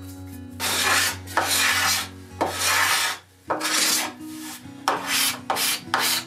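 Sandpaper rubbed by hand along the edge of a wooden slab tabletop in back-and-forth strokes. Three long, even strokes come first, then shorter, quicker ones in the second half.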